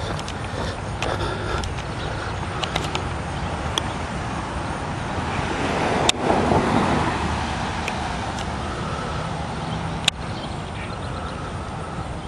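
A car passing on the street, its noise swelling and fading about six to eight seconds in over steady outdoor background noise, with two sharp clicks about six and ten seconds in.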